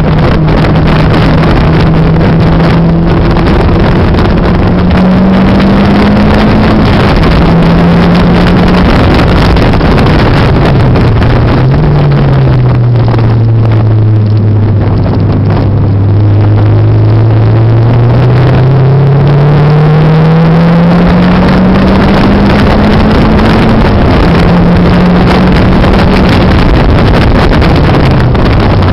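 Turbocharged Mazda MX-5's engine heard from inside the cabin at track speed, rising in pitch through the gears with several shifts. About twelve seconds in it drops to a low note and then climbs slowly for some ten seconds as the car pulls out of a long corner, all over a loud rushing noise.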